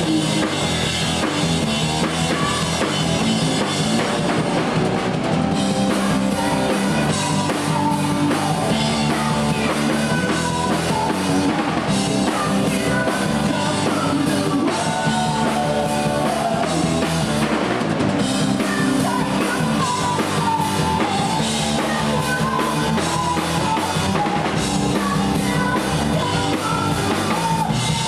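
Rock band playing live: drum kit, bass and electric guitar, with a woman singing the lead.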